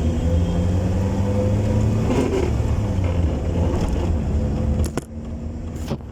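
Car engine running while the car is driven, a steady low drone with faint tones above it. About five seconds in the engine noise drops, and a few sharp clicks follow near the end.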